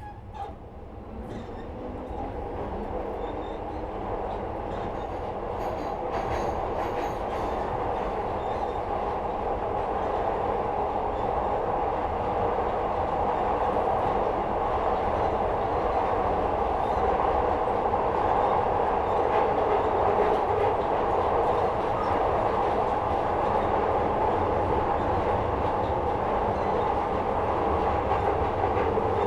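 Glasgow Subway Metro-Cammell train heard from inside the car as it picks up speed. The running rumble and motor whine build over the first ten seconds or so, then hold steady, with a few light clicks early on.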